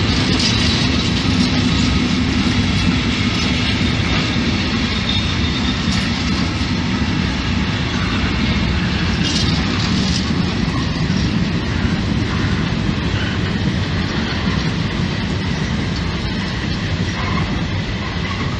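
A freight train of empty stake-type flat wagons rolling past, a steady rumble of wheels on rail with faint high wheel squeals now and then, slowly growing quieter toward the end.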